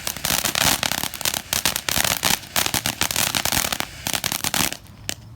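Firework fountain crackling: a dense stream of sharp crackles and pops that starts abruptly and stops after about four and a half seconds, with one last pop just after.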